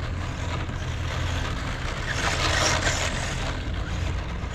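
Wind buffeting the microphone with a steady low rumble, over the running of a Losi Mini JRXT 1/16-scale RC truck's brushed electric motor and its tyres on dry dirt; the hiss swells about two seconds in, then eases.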